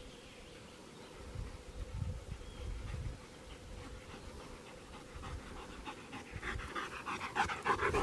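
A dog panting quickly, the breaths growing louder as it comes up close. A few low thumps come before the panting.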